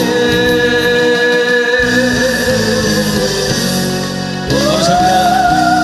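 A man singing a Korean trot song into a microphone over an instrumental backing. He holds one long note for about two seconds, then slides up into another long held note about four and a half seconds in.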